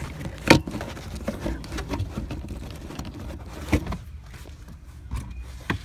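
Hands working on car parts: three sharp clicks and knocks, about three seconds apart, with lighter ticks and rattles between them over a low, steady rumble.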